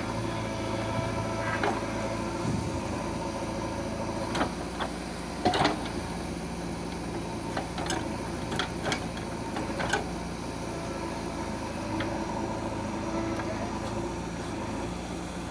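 Diesel engine of a JCB 3DX backhoe loader running steadily, with a series of short metallic clanks and knocks through the middle.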